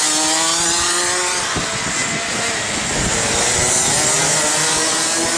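Several go-kart engines running at once, their engine notes rising and falling as the karts lap a wet track, over a steady hiss.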